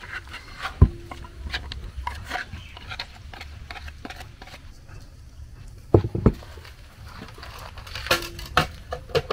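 Cooking utensils knocking and clinking against pots and dishes at irregular moments. The strongest knock comes about a second in and another pair near six seconds, with a cluster of clinks near the end; a couple of the strikes ring briefly.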